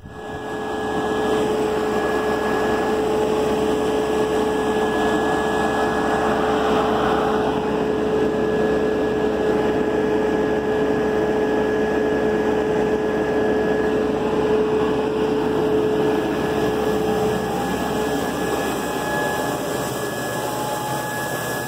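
Tractor-driven Rem 1026B grain vac running steadily under load as it moves grain, a continuous rushing whine with steady tones over it. One of the lower tones drops away near the end.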